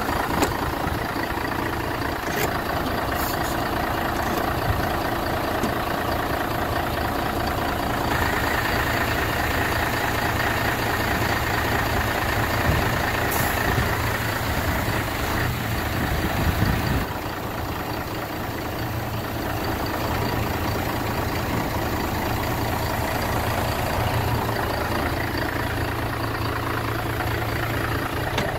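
Mercedes-Benz SK 2024 AK tipper truck's diesel engine idling steadily. The sound brightens about a third of the way in and drops a little about two-thirds through.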